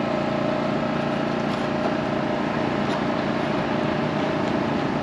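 Steady engine running, an even hum with a few held tones and no change in speed.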